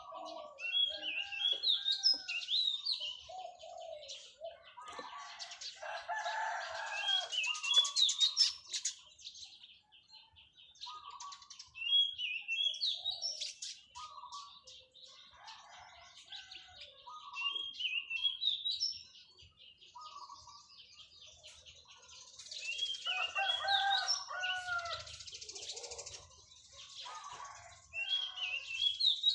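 Zebra dove cooing in repeated rolling phrases, the long drawn-out call that Thai dove keepers value. High, rising chirps of small birds come every few seconds.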